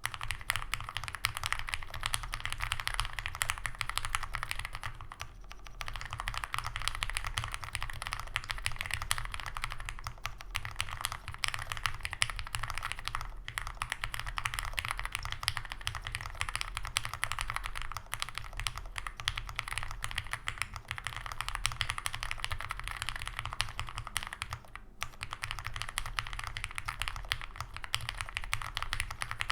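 Fast, continuous typing on a custom mechanical keyboard: lubed Cherry MX Black linear switches on a full aluminum plate with GMK doubleshot keycaps and a foam-filled case, a dense stream of keystrokes. It pauses briefly about five seconds in and again near 25 seconds.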